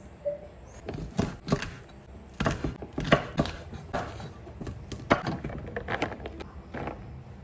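Wide-bladed kitchen knife chopping long green beans on a thick wooden chopping board: a series of irregular knocks of the blade against the wood, in quick clusters.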